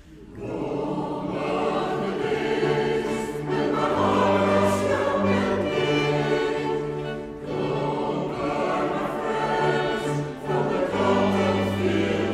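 Mixed choir singing a slow classical-style song, accompanied by a small string ensemble of violins and cello. The voices come in just after a brief hush at the start and sing on in long held phrases, with short breaths between them about halfway through and again near the end.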